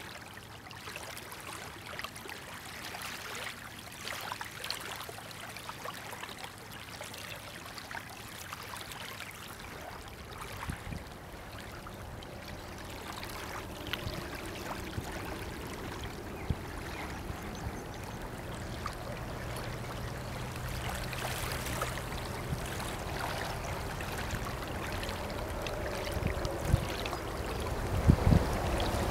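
River water lapping and splashing, growing steadily louder as the passing superyacht's bow wave comes closer, with a low steady hum from the passing vessels' engines in the second half and a few low thumps near the end.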